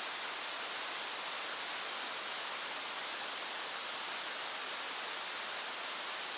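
Small stream running: a steady, even rush of flowing water.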